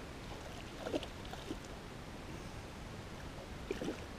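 Water splashing in a landing net as a small pike is handled and unhooked, in two short bursts, about a second in and again near the end, over a steady low background hiss.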